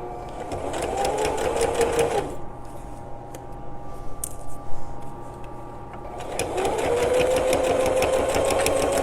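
Domestic sewing machine running a straight stitch in two runs, its motor speeding up with a rapid needle tick: a short run of about two seconds, a pause of about four seconds with a couple of clicks, then a longer run near the end.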